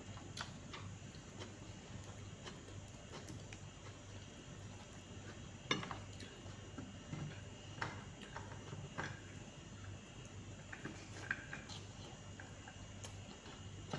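Eating by hand: scattered light clicks and taps of fingers and food against a ceramic plate and a glass bowl, with chewing, over a faint low hum.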